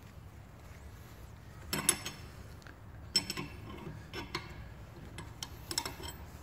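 Open-ended spanner clinking and clicking against a puller's threaded screw as it is wound round in four short bursts, drawing a stuck half shaft oil seal out of a limited-slip differential casing.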